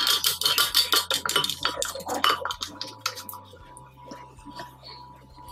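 Rapid metallic clinking and clicking as a chrome pillar tap is turned and tightened in the tap hole of a ceramic wash basin. The clicking is dense at first and dies down to a few scattered ticks after about three and a half seconds.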